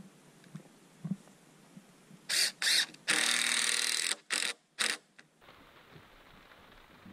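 DeWalt 20V cordless drill running into a wooden board in trigger bursts: two short bursts about two seconds in, a steady run of about a second, then two more short bursts.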